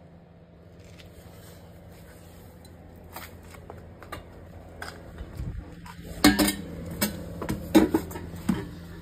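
Metallic clinks and knocks as a twin-exit exhaust back box with polished tailpipes is handled, for a Mk3 Golf VR6. The knocks are sparse at first and come loudest and closest together in the last third, over a steady low hum.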